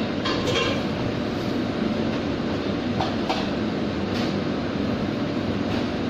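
Steady drone of a commercial kitchen's ventilation and equipment, with a few light clinks of utensils or dishes scattered through.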